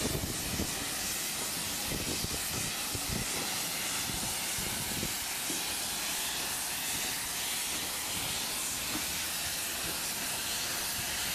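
Steam locomotive hissing steadily, close up, as a rake of carriages rolls past on the next track, with low rumbling and knocks from the passing train in the first few seconds.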